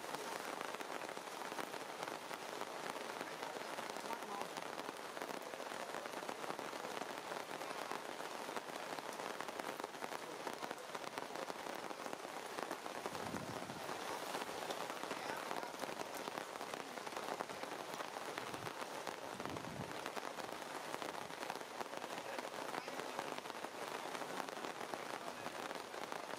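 Steady rain falling on forest leaves, an even hiss that holds throughout.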